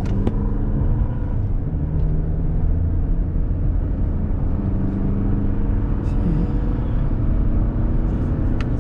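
Road noise inside a car's cabin while driving at highway speed: a steady low rumble of tyres and engine.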